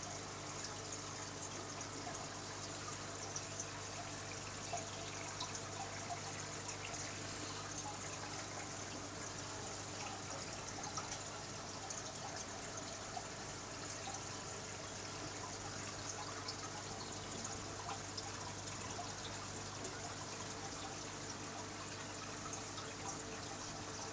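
Aquarium water bubbling and trickling steadily, with many small drip-like ticks, over a low steady hum.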